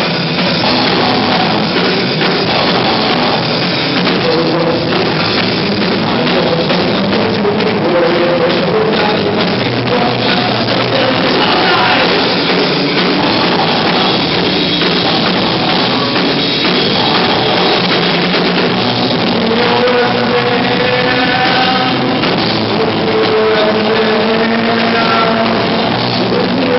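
Live rock band playing loud, distorted grunge rock: electric guitars, bass and drum kit, with a singer's voice over them. The sound is harsh and muddy, as from a rough live recording, with no high end above about 6 kHz.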